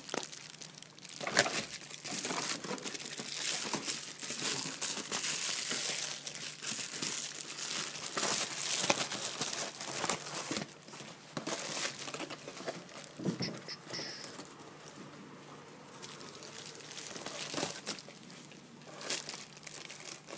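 Bubble wrap and plastic packaging crinkling and rustling as hands dig into a box and unwrap an item, in irregular crackling bursts. The crinkling is busiest in the first half and sparser later.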